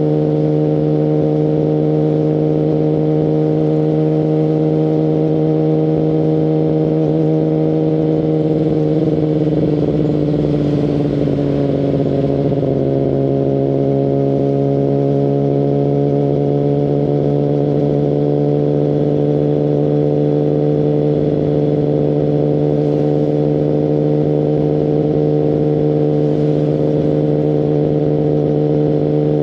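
Kawasaki Ninja ZX-10RR's 998 cc inline-four through a full Akrapovic exhaust, cruising at a steady, fairly high engine speed. Its pitch eases down slightly about ten seconds in, then holds steady again.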